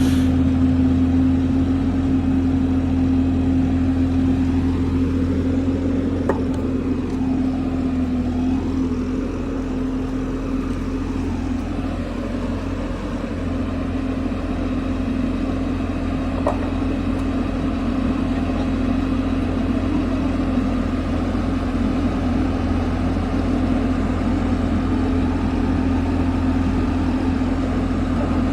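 An engine running steadily with a constant low drone, easing off a little in level about halfway through and then coming back.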